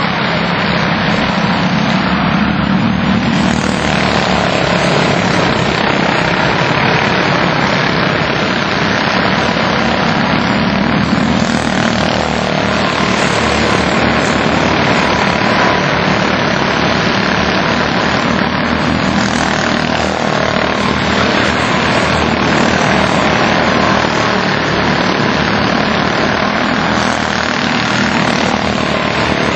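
A pack of Senior Honda quarter midget race cars racing around the oval, their small single-cylinder four-stroke Honda engines buzzing together in a steady, loud drone.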